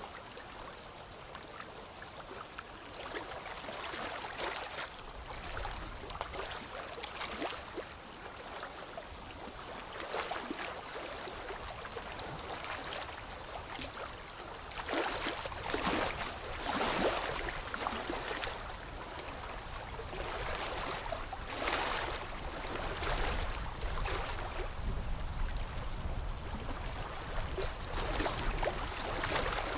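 Pencil strokes scratching on paper, irregular and uneven, some short and some drawn out for a second or so.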